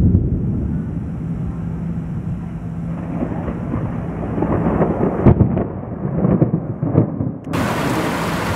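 Rolling thunder from an approaching storm: a low rumble that starts sharply, then swells with several surges from about three seconds in. Near the end it gives way suddenly to the steady hiss of heavy rain.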